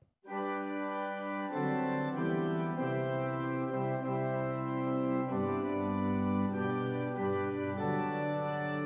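Organ music playing slow, sustained chords; a deeper bass part comes in after about a second and a half.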